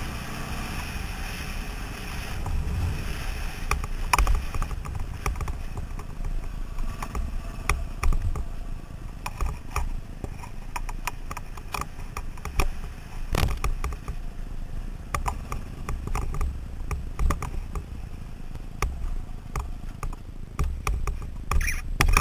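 KTM 530 single-cylinder four-stroke dirt bike running along a rough gravel track, a low uneven engine rumble with scattered knocks and rattles from the bumps, one sharp knock about thirteen seconds in.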